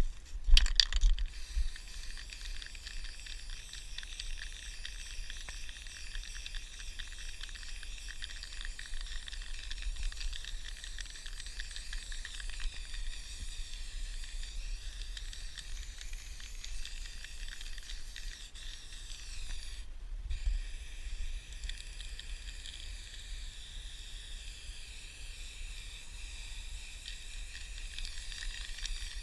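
Aerosol spray-paint can spraying in a long, steady hiss, broken once for a moment about two-thirds of the way through. A few sharp rattles sound at the very start.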